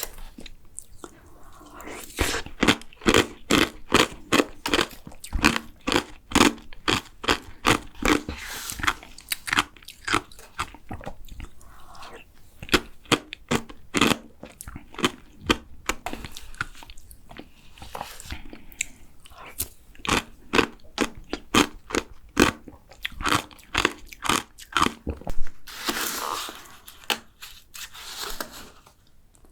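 Close-miked chewing of a tiramisu bingsu, a shaved-ice dessert: crisp crunching bites, about three or four a second, in runs with a few short pauses.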